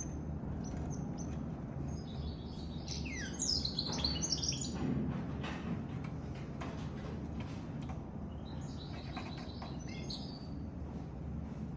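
Goldfinch mule, a goldfinch–canary hybrid, singing in two spells of quick twittering chirps with a pause between them, over a steady low rumble.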